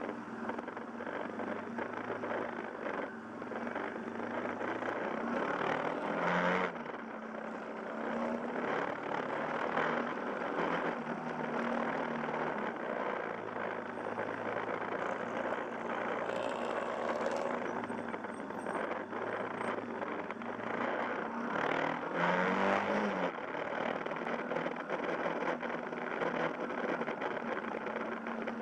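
Yamaha Fazer YS250 motorcycle's single-cylinder four-stroke engine running while riding, mixed with wind and road noise. There are two louder swells, about six seconds in and about twenty-two seconds in.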